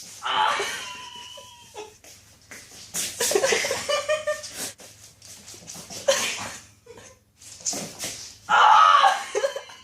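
Voices laughing and shrieking in several short bursts, with the loudest one near the end.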